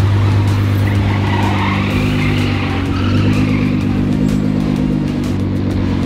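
Nissan GT-R's engine running at low revs as the car creeps forward at walking pace, a steady low hum.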